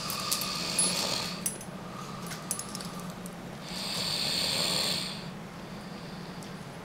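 A sleeping person snoring: two long, breathy snores about four seconds apart, over a steady low hum. A few sharp clicks come during the first snore, the loudest less than a second in.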